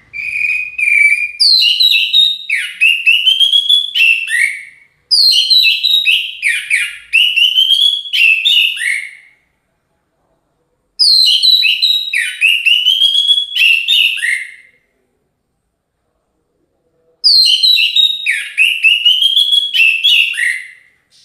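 An orange-headed thrush (anis merah) in full song: four loud phrases of rapid whistled, slurred notes, each about four seconds long, with short pauses between them.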